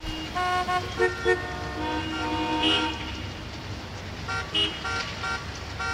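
Several car horns honking at different pitches, in short beeps and a few longer blasts, over a steady low rumble of traffic.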